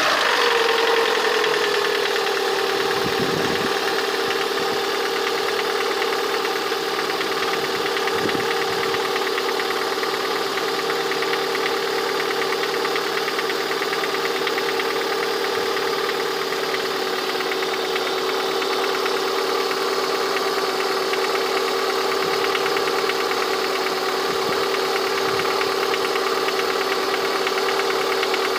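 Lada VAZ-21126 1.6-litre 16-valve petrol engine idling with a knocking noise whose cause the owner is asking about; the idle settles down over the first couple of seconds after a rev, then runs steadily. The engine is not yet at full operating temperature.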